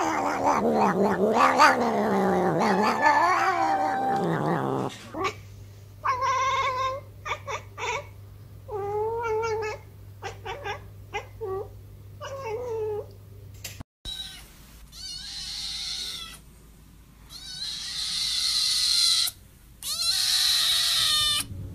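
Domestic cats meowing in three separate clips. First a long, loud, wavering yowl. Then a string of short meows about half a second each. Then a kitten's high-pitched meows.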